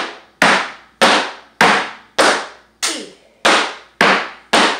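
Flamenco percussion from a dancer, nine sharp strikes in a steady beat about every 0.6 s, each ringing briefly in the room.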